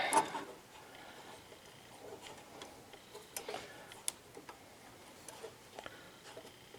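Faint, scattered light clicks and taps of small engine parts being handled while a carburetor and its gasket are fitted to a snowblower engine.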